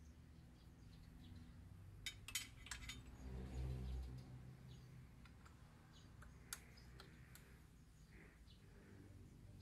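Faint metallic clicks and clinks of tools on the mounting bolts and bracket of a slip-on motorcycle muffler being fitted. A quick cluster of clicks comes about two seconds in, then a brief low rumble, then one more click later on.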